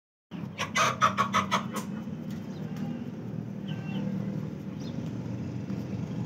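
Chicken clucking: a quick run of about six sharp calls in the first two seconds, then a few faint chirps later, over a steady low hum.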